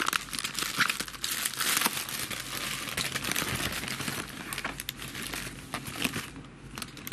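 Plastic packaging crinkling and rustling as a postal mailer and the bubble-wrapped, plastic-bagged parcel inside it are handled and pulled out, easing off near the end.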